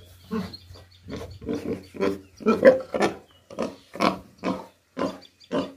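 Domestic pig grunting, a steady run of short grunts about two a second.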